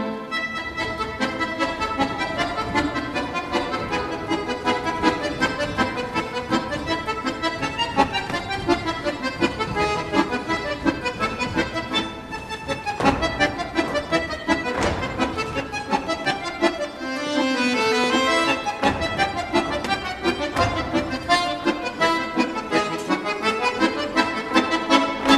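Lively folk dance music with a prominent accordion over a quick, steady beat, accompanying the stage dance.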